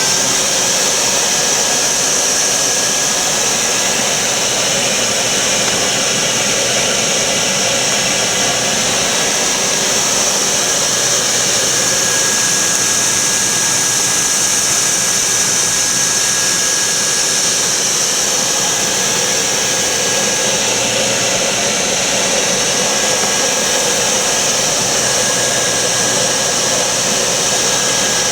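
1949 Electrolux Model XXX vacuum cleaner running steadily: an even, loud rush of motor and air with a strong high hiss.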